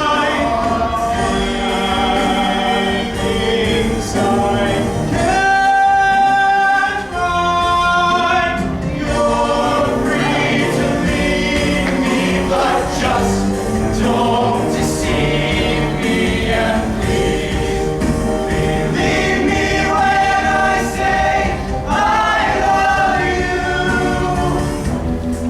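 Show choir singing long held notes in harmony over a live band with drums, without clearly sung words.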